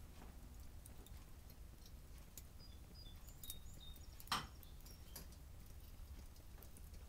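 Small wood-burning camp stoves burning under pots, giving faint crackling with scattered clicks and pops, and one sharper snap about four seconds in.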